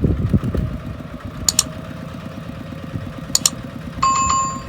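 Single-cylinder diesel engine of a Kubota RT140 walking tractor chugging steadily. Two pairs of sharp clicks come in the middle, and a short beep sounds near the end.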